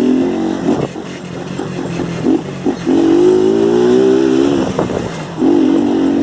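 Motorcycle with a de-baffled (core-removed) exhaust pulling under throttle. Its loud engine note rises steadily for about a second and a half, eases off briefly, then pulls again near the end.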